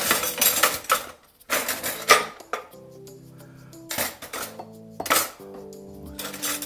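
A metal fork scraping and clinking against a ceramic bowl in several bouts as raw chicken pieces are stirred through a sweet-salty marinade. Background music plays underneath.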